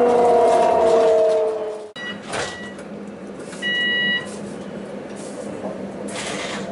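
Translohr tram's electric motors whining, several tones falling slowly in pitch as it slows, ending in an abrupt cut. After it, a short electronic beep of about half a second and brief bursts of hiss over a quieter background.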